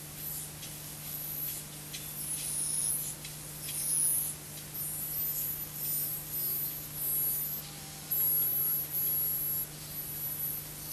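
Scrambled audio of an encrypted analogue pay-TV broadcast: garbled, chirping high-pitched sounds in irregular bursts over a steady low hum.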